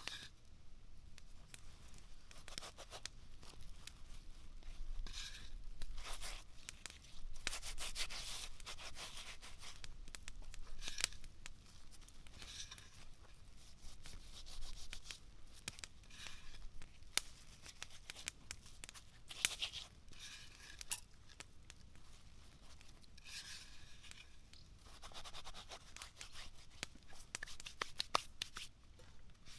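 A cotton cloth rustling and rubbing as a rack of raw lamb ribs is handled and turned on it, coming in irregular bouts with scattered light clicks.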